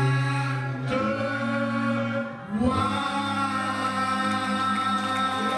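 Men's gospel choir singing a cappella, holding one long chord, breaking briefly about two and a half seconds in, then holding another.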